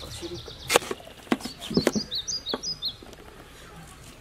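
Knives cutting boiled yams, giving about five sharp knocks over the first three seconds. A bird chirps a quick run of high notes about two seconds in.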